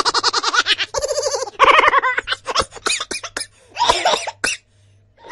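A string of short laugh sound effects, one different laugh after another, each a quick run of rapid "ha-ha" pulses lasting about a second, falling quiet near the end.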